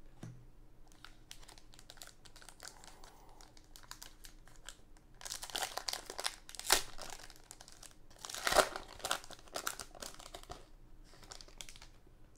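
Foil trading-card pack wrapper crinkling and tearing as it is ripped open by hand. The crackling comes in bursts, loudest about halfway through and again near eight to ten seconds in.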